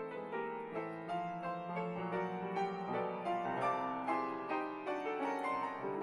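Solo grand piano playing a continuous flowing passage, with many quick notes over held lower notes.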